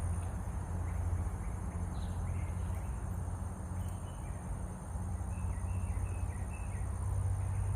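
Outdoor background: a steady low hum with birds chirping in short, falling notes, several times through the middle.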